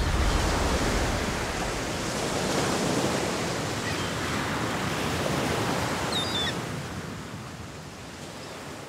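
Ocean surf washing steadily, fading out over the last couple of seconds. A brief high chirp sounds about six seconds in.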